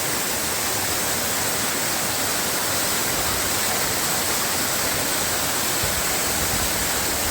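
Loud, steady rush of a waterfall in full winter flow, heard from directly beneath it.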